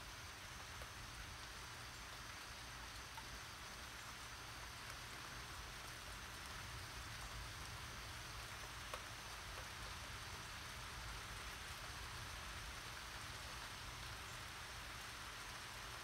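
Steady, faint hiss of light rain falling, with a few small drop ticks and a low rumble underneath.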